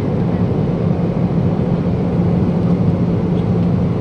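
Steady drone of an airliner heard from inside the passenger cabin: engine and air noise with a constant low hum.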